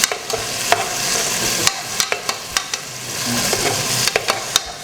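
Chopped onions sizzling in hot oil in a pressure cooker while being stirred and sautéed, the stirring utensil scraping and clicking against the pot many times.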